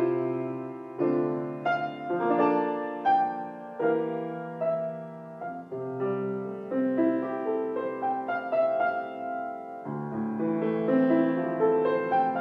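Piano playing a slow, gentle prelude: chords and melody notes struck and left to fade, a new chord about every second.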